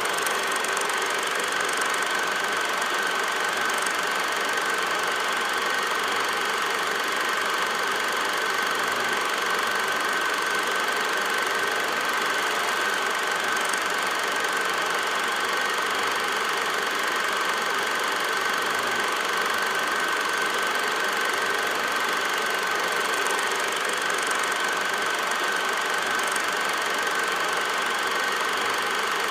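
Steady mechanical running noise with a constant high whine, unchanging throughout, and no game or crowd sounds.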